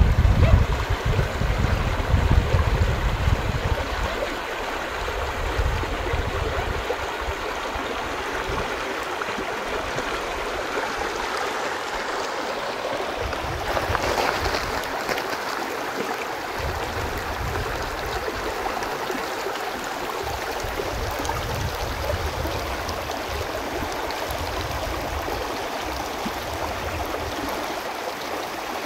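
Steady rush of running water, like a stream, with wind buffeting the microphone as a low rumble that comes and goes, strongest in the first few seconds.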